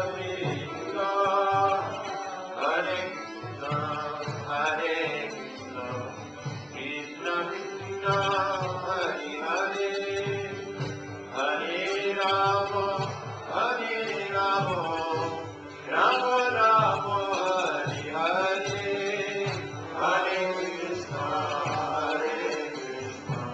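Devotional chanting: voices singing Gaudiya Vaishnava prayers to a melody, in phrases of a second or two.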